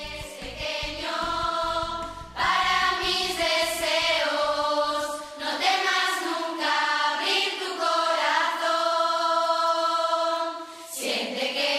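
A choir singing slowly, holding long notes that move together from chord to chord.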